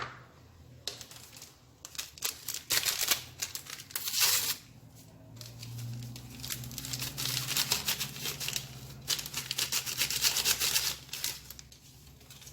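Flour and baking powder being sifted through a mesh kitchen sieve: a dry, scratchy rustling that comes in uneven spells.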